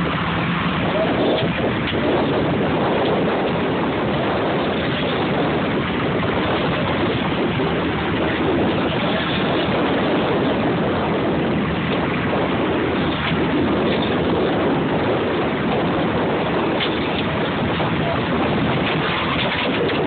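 Wind rushing over the microphone and sea water washing against a small fishing boat at sea, a steady noise with a faint low hum beneath it.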